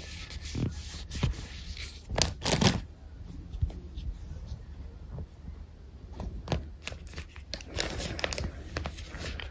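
Phone cases handled close up on a fabric blanket: fingers tapping and sliding on the cases, with small knocks and soft rustling. The loudest scrape comes about two and a half seconds in, with another cluster near the end.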